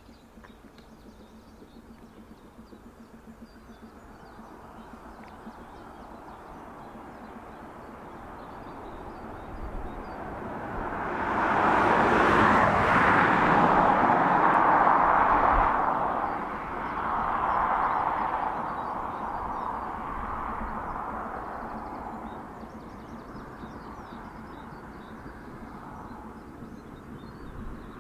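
BR Standard Class 9F steam locomotive, a 2-10-0, passing with its train of coaches, heard from across open water. The sound swells to its loudest about halfway through, then fades away as the train draws off.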